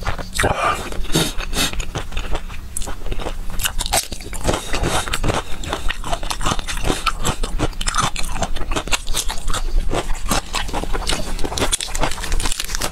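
A person chewing crunchy food close to a clip-on microphone, with a continuous run of crisp, irregular crunches.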